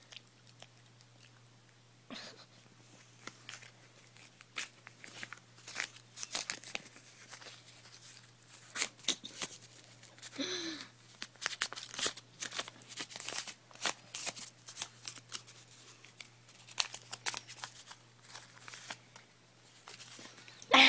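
A small dog chewing and tearing a paper bus pass: irregular crunching, crinkling and ripping noises that begin about two seconds in. A brief voice-like sound comes about halfway through.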